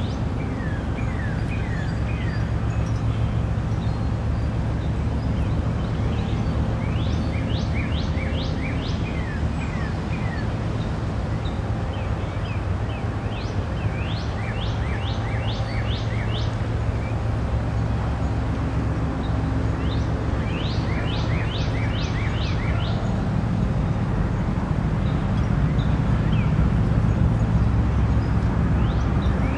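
A songbird singing phrases of quick rising notes, repeated every few seconds, over a steady low rumble that grows a little louder near the end.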